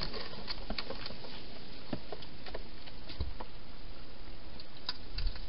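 Wild hedgehog in a clear plastic feeding box making irregular small clicks and taps as it moves and eats at the bowls, over a steady hiss.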